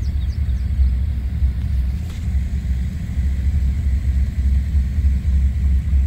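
Low, steady rumble of a car driving on a rural road, tyre and wind noise as heard from inside the cabin.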